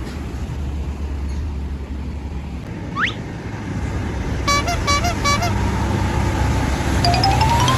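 A vehicle engine runs with a steady low rumble. A quick rising whistle comes about three seconds in, a short run of musical horn toots follows a little later, and a tone rises steadily near the end.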